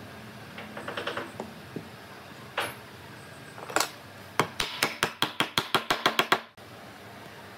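Wooden table leg being knocked into its joint on an old railway sleeper: a couple of single knocks, then a rapid run of about a dozen sharp knocks, about six a second, that stops abruptly.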